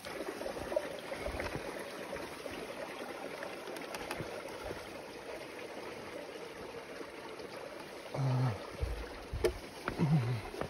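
Stream water running steadily beneath a log crossing. Near the end come a few low thumps of boots on the logs and two short low-pitched sounds.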